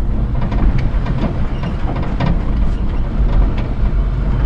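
Kei mini truck's small engine running steadily, heard from inside the cab, with frequent knocks and rattles as the truck jolts along a rutted, muddy dirt trail.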